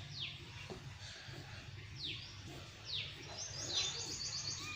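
Bird calls: a high call sweeping sharply downward, repeated about once a second, with a quick run of high chirps near the end, over a steady low hum.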